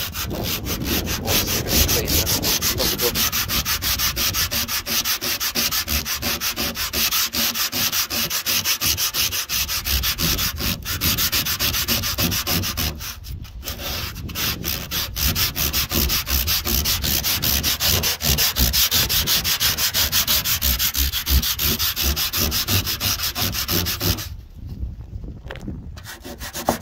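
Hand-sanding rust off the steel rear quarter panel of a Ford Cortina Mk4 with a small piece of sandpaper: rapid back-and-forth rubbing strokes, with a couple of brief pauses about halfway, stopping a couple of seconds before the end with only a few strokes after.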